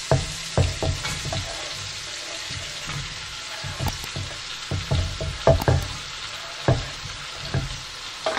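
Chopped red onions sizzling in hot butter and oil in an enameled cast-iron Dutch oven, with repeated knocks and scrapes as they are pushed off a wooden cutting board and stirred with a wooden spoon.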